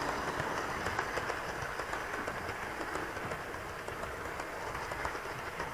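Model railway train rolling past on the track, its wheels clicking rapidly over the rail joints, the sound gradually fading as it moves away.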